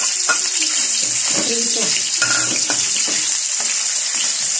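Ground pork sizzling in hot oil in a wok, with the spatula scraping and clicking against the pan as the meat is stirred.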